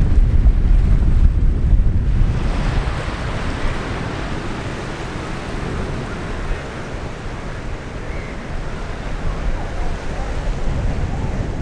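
Sea surf washing onto a flat sandy beach, with wind buffeting the microphone as a heavy low rumble for about the first two seconds.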